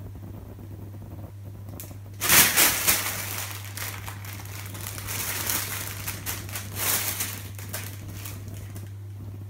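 Clear plastic bag crinkling as a Bengal cat scrambles about inside it, starting about two seconds in, loudest at first, then going on in uneven bursts for some six seconds. A steady low hum lies underneath.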